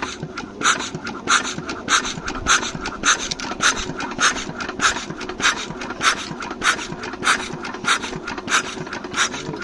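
Diesel generator engine being hand-cranked without firing: a regular rasping chuff about every 0.6 seconds as it turns over. The men take the fault for a jammed injector nozzle.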